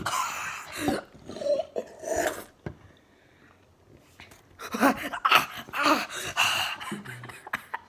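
A person gasping and blowing breathy, hissing breaths through the mouth, a reaction to a burning mouth from eating pepper. There are two spells of it, with a quiet pause of about two seconds between.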